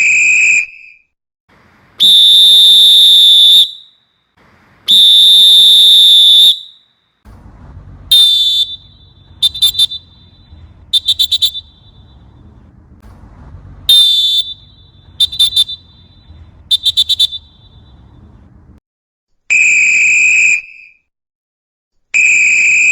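Referee's whistle blown in a series of separate blasts: a long one about two seconds in, another about five seconds in, then two runs of one longer and two short warbling blasts over a low rumble, and two more long blasts near the end.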